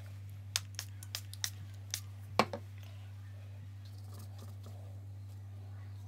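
A quick run of about six small clicks and knocks, the loudest about two and a half seconds in, as a paintbrush and painting gear are handled on a wooden table, over a steady low hum.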